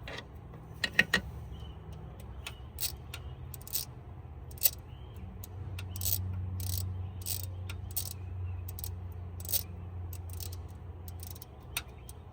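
Hand ratchet clicking in short irregular strokes as valve cover bolts are run down, over a low steady hum.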